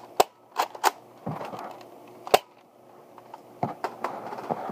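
Sharp plastic clicks from a Nerf Rival Apollo blaster being handled, three quick ones in the first second and a louder one about two seconds in, with softer knocks near the end.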